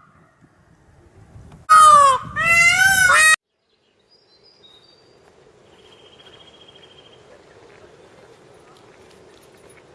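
Goose honking: a quick series of loud, arched honks from about 1.7 to 3.3 seconds. They stop abruptly, and only faint background noise follows.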